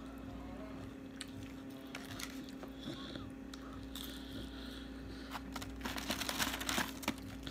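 Quiet chewing and mouth sounds of someone eating fried food, with soft clicks and smacks. Near the end there is a burst of rustling, a little over a second long.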